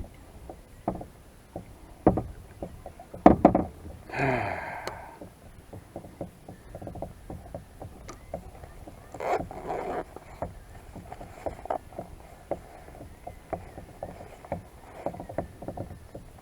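Kayak paddling: the paddle knocking against the plastic hull and splashing, with irregular sharp knocks and clicks throughout and a cluster of louder knocks a few seconds in. A brief pitched call sounds about four seconds in.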